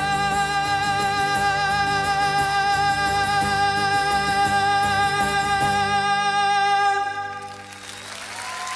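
Male singer holding one long closing note with vibrato over a strummed twelve-string acoustic guitar, ending the song about seven seconds in. Audience applause starts near the end.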